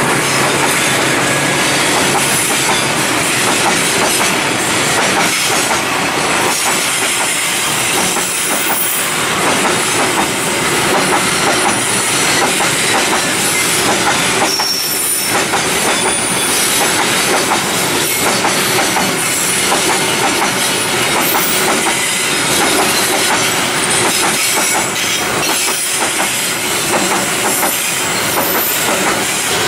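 Freight train wagons rolling past close by, a steady loud rumble with wheels clattering rhythmically over rail joints and occasional high-pitched wheel squeal.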